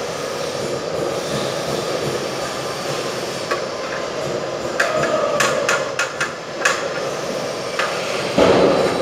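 A handful of sharp knocks and taps from installation work at a wall, bunched around the middle, with a louder knock and scrape near the end, over a steady rushing background noise.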